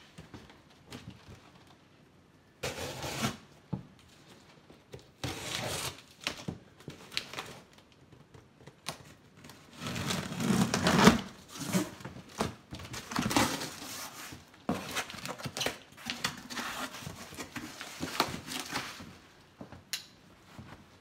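Packing tape being slit with a knife and torn off a cardboard box in irregular rips and scrapes, then the cardboard flaps pulled open.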